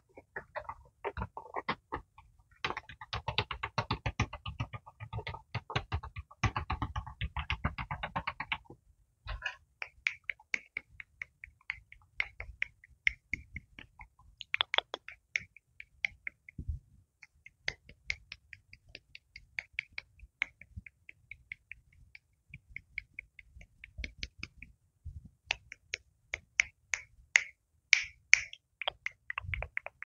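Close-microphone ASMR sounds. First, a plastic clown mask is rubbed and tapped against a small microphone in a dense run of scratchy clicks. Then, from about nine seconds in, fingers flick and flutter right at the microphone, making a quick, uneven series of crisp clicks.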